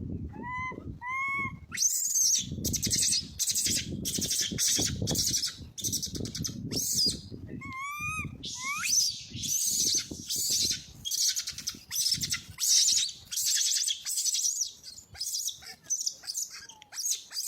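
Baby monkey crying in distress, typical of an infant that has lost its mother: a couple of short arched coo calls, then shrill, raspy screams repeated about twice a second, with another pair of coos about eight seconds in.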